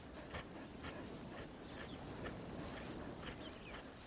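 Faint bush ambience: a steady high insect drone with a short, high chirp repeating about twice a second, pausing briefly now and then.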